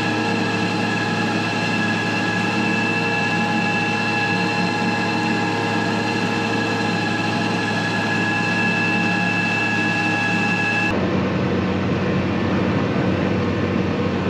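John Deere tractor's engine and driveline running steadily under load while pulling a tillage tool, with several high whines held constant over the rumble. About eleven seconds in it changes abruptly to a duller, steady hum inside a tractor cab.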